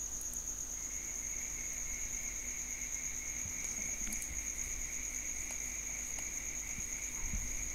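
Steady high insect trill in the background, with a second, lower steady trill joining about a second in. A faint low hum and a few light clicks sit under it.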